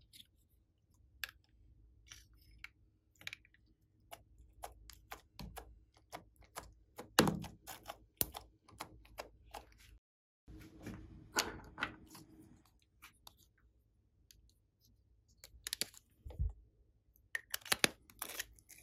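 Slime being handled: irregular small, sharp sticky clicks and pops, busiest about 7 s in and again near the end.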